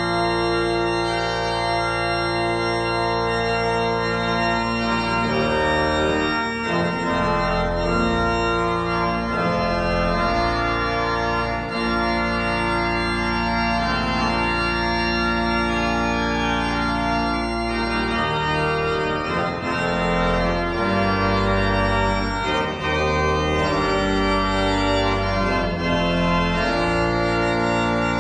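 Church pipe organ playing slow, held chords over a deep bass line.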